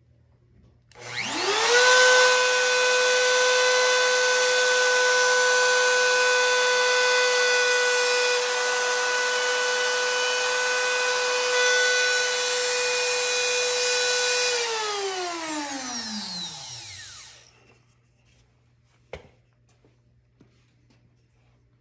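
Router in a binding-channel jig switched on, spinning up to a steady high whine within about a second and cutting a test purfling channel in scrap wood. It is then switched off and winds down with a falling pitch over about three seconds, and a single click follows.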